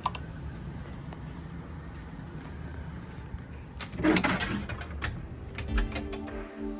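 2000 Goodman Desert Series heat pump system running with a steady low hum. About four seconds in there is a short rustle, then a few sharp clicks, and music begins near the end.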